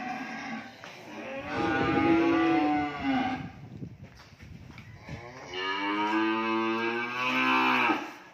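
Cattle mooing: two long moos, the first about a second in and the second, the longer at roughly two and a half seconds, starting past the middle, with the tail of an earlier moo at the very start.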